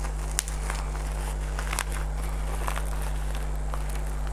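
Plastic courier packaging crinkling and crackling as it is handled and opened, with a few sharper crackles, over a steady low hum.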